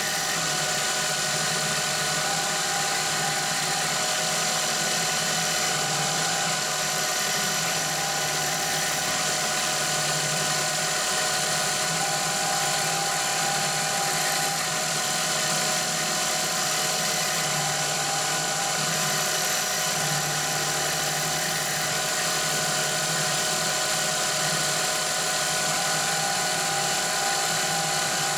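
CNC milling machine with a half-inch wood router bit at about 1500 rpm, cutting a pocket in a block of composite plastic. It runs steadily, with several constant whining tones over the noise of the cut.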